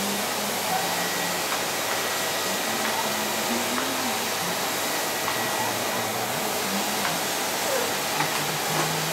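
Vacuum cleaner running steadily as its floor nozzle is worked over a tiled floor.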